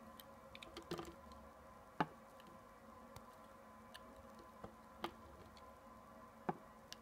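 Bare utility-knife blade slicing soft glycerin soap: a series of short, crisp cuts and sharp clicks, the loudest about two seconds in, over a faint steady hum.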